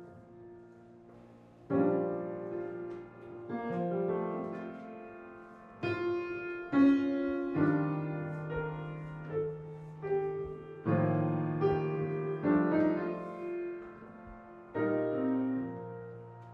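Solo piano playing slow chords, each struck and left to ring and fade before the next.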